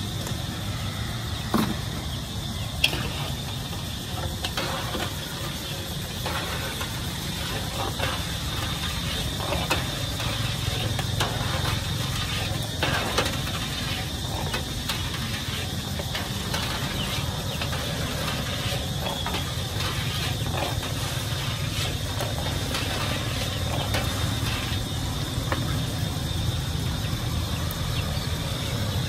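Metal strainer clinking, tapping and scraping against a large wok as fried shallots are scooped out of hot oil, with two sharper knocks early on, over a steady low rumble.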